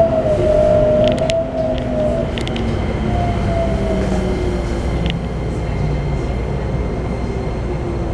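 Keikyu New 1000 series electric train with a Toyo IGBT-VVVF inverter, heard from inside the car as it slows down. The inverter whine falls slowly in pitch over a steady rumble of wheels on rails, with a few sharp clicks in the first half.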